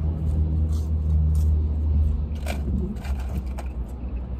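Chewing fries, with a few short crunchy clicks, over a steady low vehicle rumble that eases after about two seconds.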